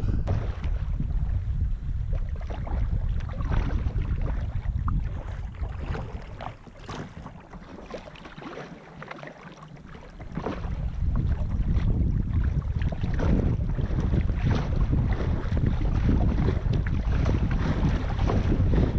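Wind buffeting the microphone while a kayak moves on choppy water, with repeated small splashes and lapping of water against the hull. The wind rumble drops away for a few seconds in the middle and then returns.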